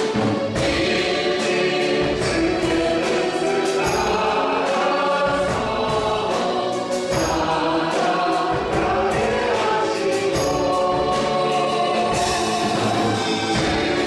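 A church praise team singing a worship song as a group, with instrumental accompaniment and a steady beat.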